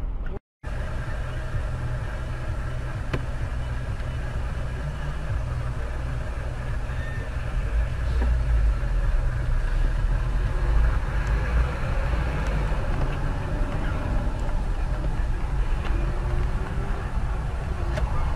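Car running on the road: steady low engine and road noise, louder from about eight seconds in.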